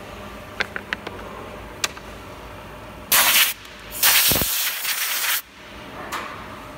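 Compressed-air blow gun hissing as it blows sawdust off a freshly CNC-cut MDF piece, in a short burst about three seconds in and a longer one of over a second that follows. Before it, a few light clacks as the cut wooden pieces are handled.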